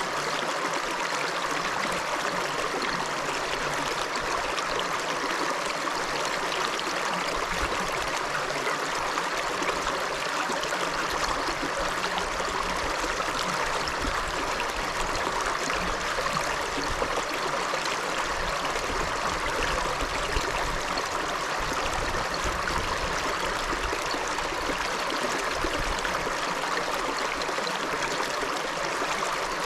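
River water flowing, a steady unbroken rush and babble.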